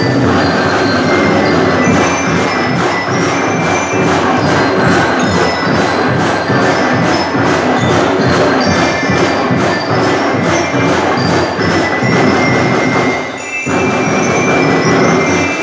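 Marching rhythm band playing: snare and bass drums keep a steady beat under a ringing melody on bell lyres (marching glockenspiels). The drums break off briefly near the end before the playing resumes.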